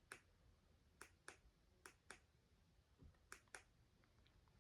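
Near silence broken by faint, sharp clicks, mostly in pairs about a quarter second apart, four times.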